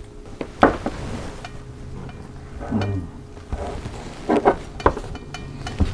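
Knife and fork clinking and scraping on a ceramic plate while carving a roast chicken, a few sharp clicks, with a couple of short hummed 'mm' sounds in between.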